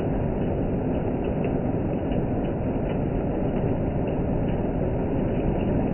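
Loud hail falling steadily: a dense, even noise with scattered sharp ticks of individual hailstones striking.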